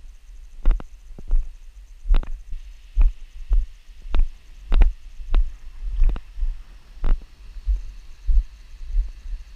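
Footsteps on a rocky, gravelly trail: dull thumps, most with a sharp click, about three every two seconds in a steady walking rhythm.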